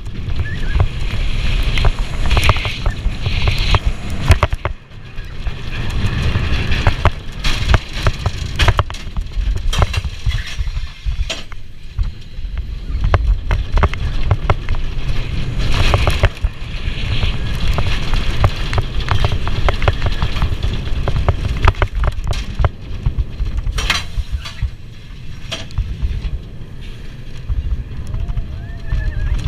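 Bobsled roller coaster car running down its open trough: a continuous low rumble and rattle from the wheels, with frequent knocks and clatters as the car jolts through the banked curves.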